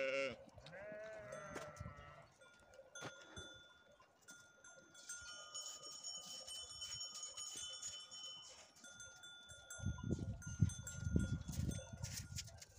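A sheep bleats once near the start, then bells on the grazing flock clink and ring with a few clear, steady tones. A low rumble comes in near the end.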